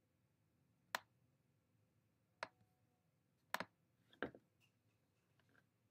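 Four or five sharp computer mouse clicks, spaced irregularly over a few seconds, against near silence.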